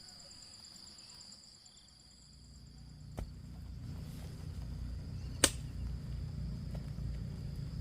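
Insects chirring steadily at a high pitch, with a low rumble building from about a third of the way in. Two sharp knocks, the louder one a little past the middle.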